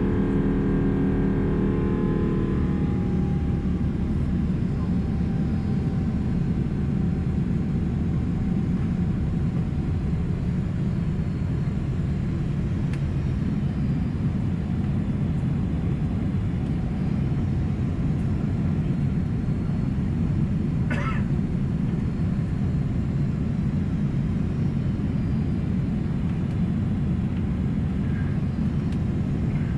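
Boeing 777-200 jet engines heard from inside the cabin: a steady, loud low rumble. A droning engine tone fades away in the first few seconds, and a brief sharp clack sounds about two thirds of the way through.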